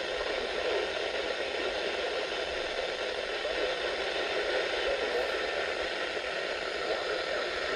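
Radio receiver hissing with steady static from a weak weather-radio signal.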